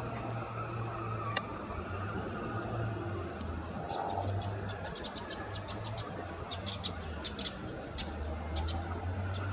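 Many quick, high bird chirps in irregular clusters begin a few seconds in, over a steady low rumble.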